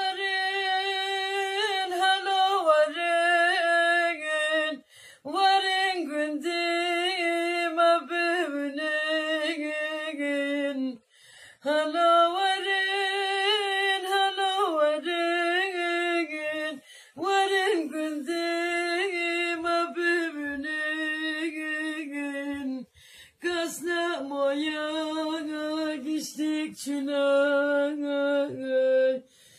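A single voice singing a Kurdish ağıt (lament) unaccompanied, in long ornamented phrases with short pauses for breath about every six seconds.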